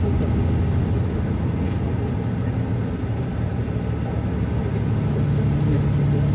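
Semi truck's diesel engine and road noise inside the cab while driving, a steady low drone whose pitch steps a little higher past halfway.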